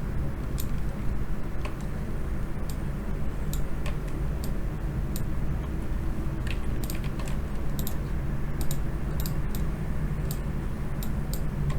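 Scattered, irregular clicks of a computer keyboard being typed on, over a steady low hum.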